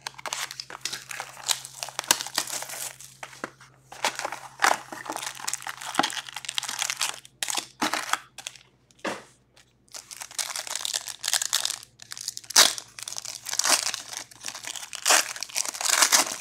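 Plastic shrink wrap slit and torn off a trading-card hobby box, then the cardboard box opened and foil card packs pulled out, crinkling and rustling in irregular bursts.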